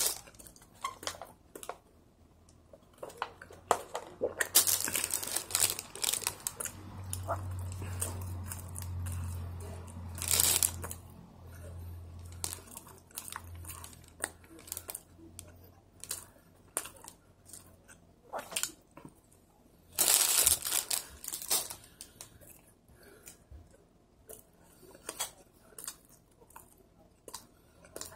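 Clear plastic bread wrapper crinkling in several loud bursts, about five, ten and twenty seconds in, between close-up chewing and mouth sounds of eating a soft red bean bun.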